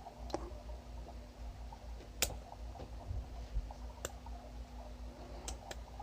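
Sharp, scattered metallic clicks of a lock pick and tension wrench working inside a padlock's keyway. There are about five clicks, the loudest about two seconds in and two close together near the end, over a faint steady hum.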